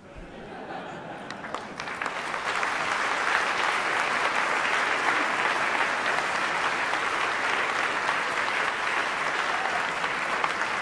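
Audience applauding, building up over the first two seconds and then holding steady.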